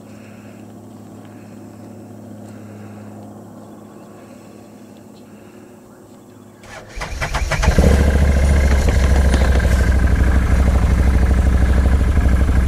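A faint, steady hum of distant machinery, which the rider takes for a skidder working. About seven seconds in, an ATV engine cranks briefly, catches and starts, then runs loud and steady.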